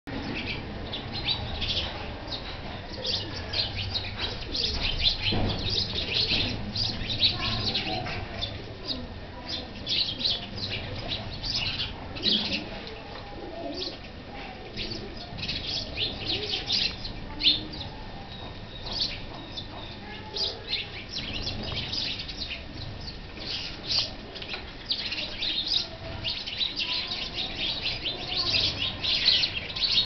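A small flock of sparrows chirping busily, many short, high chirps in quick succession.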